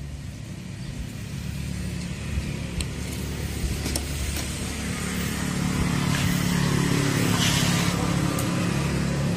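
Honda Vario 110 scooter's carburetted single-cylinder four-stroke engine idling steadily, getting louder about halfway through, with a few faint ticks.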